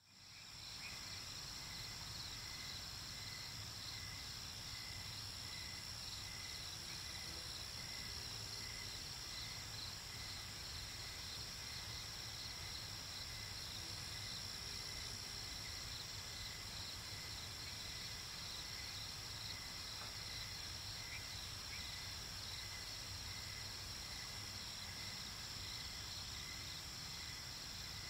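Crickets chirping: a steady high-pitched trill with a fainter, evenly pulsing chirp lower down. It fades in over the first second.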